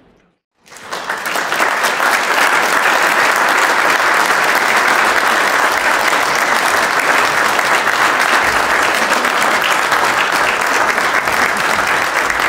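Audience in a hall applauding: dense, steady clapping that starts just under a second in and keeps going.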